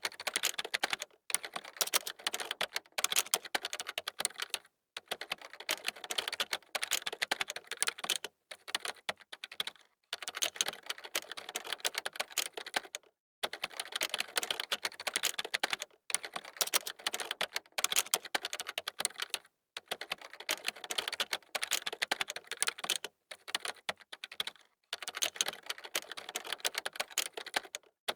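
Typing on a computer keyboard: quick runs of key clicks in bursts of one to three seconds, with short pauses between them.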